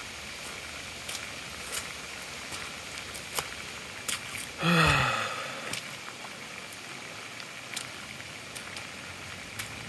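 Steady rush of floodwater running across a waterlogged yard, with scattered sharp clicks. About five seconds in, a man gives one short, loud vocal sound that falls in pitch.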